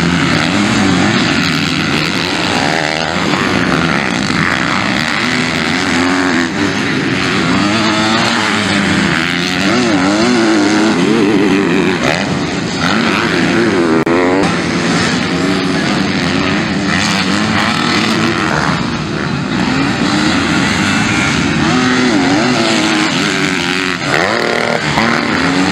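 Several 250cc MX2 motocross bikes racing, their engines revving up and down as riders accelerate, shift and back off through corners and jumps.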